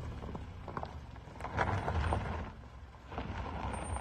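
Car engine running at low revs, swelling twice, while the tyres crunch slowly over loose stones in scattered irregular clicks.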